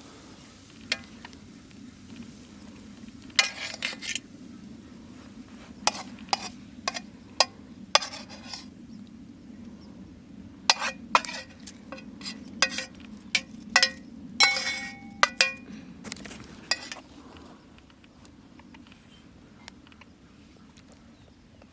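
Metal cutlery clinking and scraping against a pan and dishes in a string of sharp clinks for most of the stretch, thinning out near the end, over a steady low hum.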